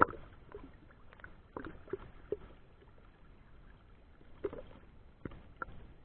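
Irregular knocks and splashes of water around a small boat, the sharpest knock right at the start.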